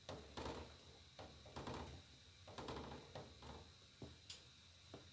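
Soft plops as small flour-dusted rice-flour balls are dropped one at a time into coconut milk in a stainless steel pan, coming irregularly about every half second to a second, with one sharp tick about four seconds in.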